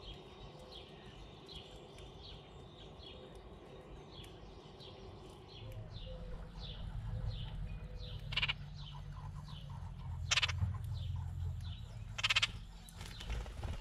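Birds calling: a short falling chirp repeated about twice a second, with three louder harsh, buzzy calls in the second half. A low rumble sets in about halfway through.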